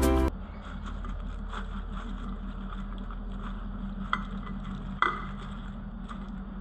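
A slotted steel skimmer clinking lightly against a plate as fried vadas are set down, a few sharp taps, the loudest about four and five seconds in, over a steady low hum. A brief tail of music cuts off at the very start.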